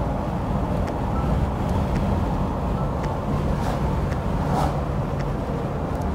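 Steady road and engine noise inside a car cabin at highway speed, a constant low rumble.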